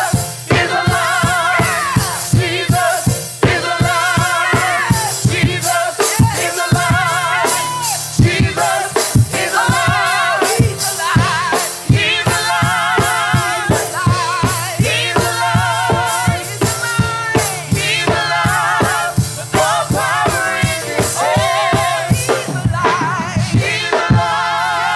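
Live gospel worship music: singers with strong vibrato over a band with a steadily beating drum kit.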